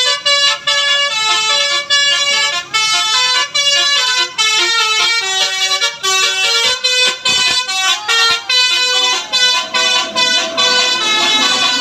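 Bus telolet horn, a multi-tone musical air horn of the Basuri kind, playing a quick melody of many short notes that jump between pitches, with brief breaks between phrases.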